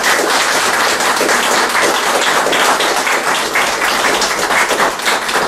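A small audience applauding, many hands clapping at an even level.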